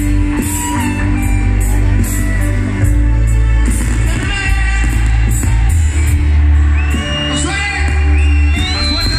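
A grupero band playing live through a PA, with a male lead singer over heavy bass, drums and cymbals.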